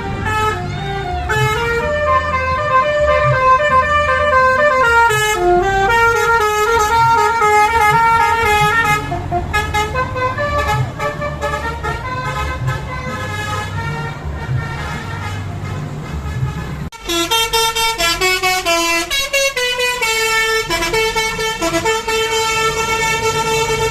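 Basuri 'telolet' multi-tone bus horn playing a melody of stepping notes over a low engine rumble. The tune breaks off sharply about 17 seconds in, another starts, and it ends on a held chord.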